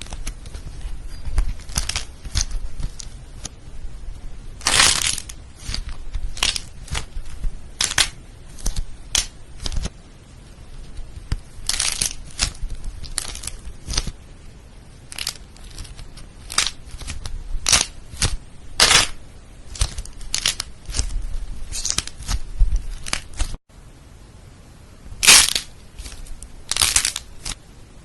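Slime being squeezed and pressed by hands, giving irregular crackling and crunching pops, with a few louder pops.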